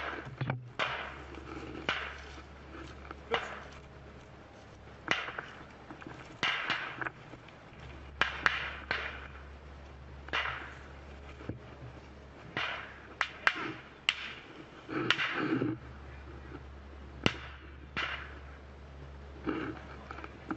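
Scattered gunshots: about a dozen sharp single cracks at irregular intervals, a second or two apart, with rustling of brush between them.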